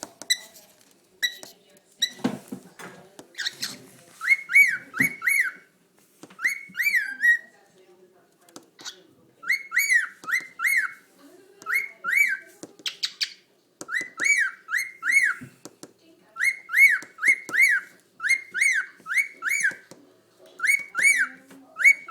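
Cockatiel whistling the same short phrase over and over: quick arched notes that rise and fall, in runs of two to four with short pauses between runs. A few harsher chirps come near the start.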